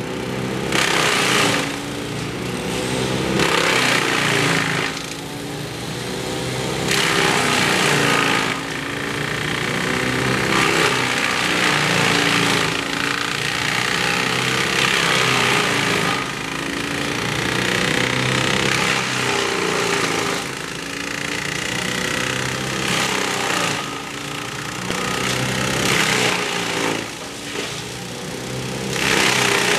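Gas chainsaw cutting wood, its engine pitch rising and falling under load while the cutting noise swells and eases every second or two.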